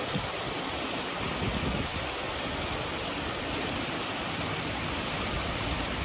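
Small rock waterfall spilling into a pond: a steady rush of falling water.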